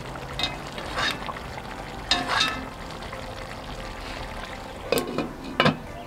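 Metal spoon stirring chicken pieces in a cast iron pot, scraping and clinking against the pot a few times, then a glass lid set down on the pot with sharp clanks near the end. A steady low hiss runs underneath.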